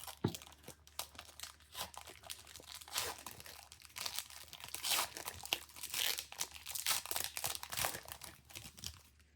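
Plastic trading-card pack wrapper for Marvel Annual cards being torn open and crinkled by hand, a dense, irregular crackling that stops just before the end.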